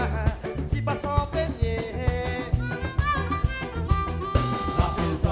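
Live band playing an instrumental passage: drum kit and bass keeping a steady beat under electric guitar, with a lead melody held on long notes and no singing.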